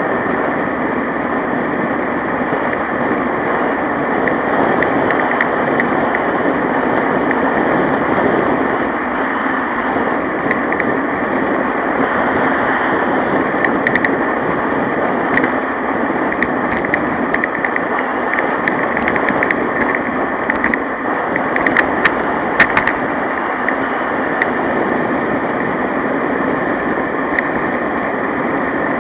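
Steady rushing road and wind noise from riding along a paved road, with scattered light clicks and rattles in the middle stretch.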